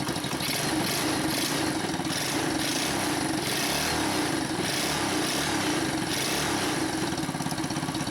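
Single-cylinder pit bike engine in a Tula scooter running steadily, its hiss swelling and fading about once a second. It is running after a cracked carburetor spacer, suspected of letting in air and upsetting the carburetor, was replaced.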